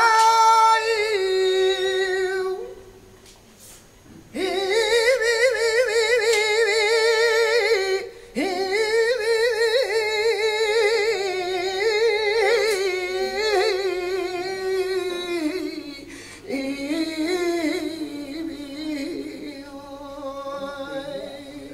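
Male flamenco singer singing a toná without guitar, in long melismatic phrases with a wide, wavering vibrato. The voice breaks off briefly three times for breath between phrases.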